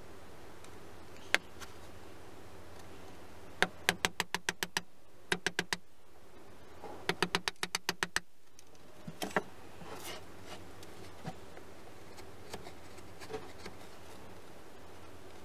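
Three quick runs of sharp taps, about six a second, with a few single knocks around them: a hand tool striking wood in a hand-tool woodworking shop.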